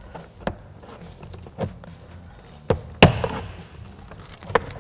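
Plastic trim tool prying up a door's power window switch panel. Its plastic clips pop and knock loose in about five sharp clicks, the loudest about three seconds in.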